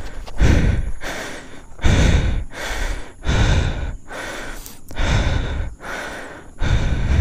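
A man breathing hard close to the microphone, about five heavy breaths spaced a second and a half apart. He is out of breath from climbing a steep trail on foot.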